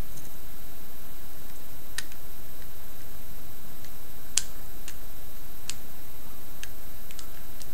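Sparse, irregular clicks of hard plastic parts as a Transformers action figure is handled and its joints are moved, about seven in all, the loudest near the middle. Under them runs a steady low background hum.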